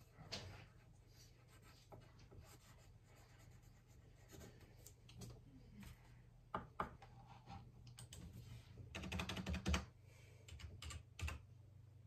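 Faint typing on a computer keyboard: scattered single keystrokes, then a quick run of them about nine seconds in, over a steady low hum.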